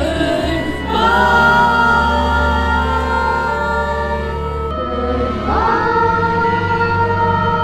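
Music: a group of voices singing long held notes over accompaniment, moving to a new chord about a second in and again past the middle.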